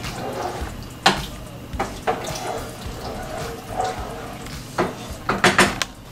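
Wooden spoon stirring a thick creamy chicken stew in a pot, with the spoon knocking sharply against the pot a few times and several knocks in quick succession near the end.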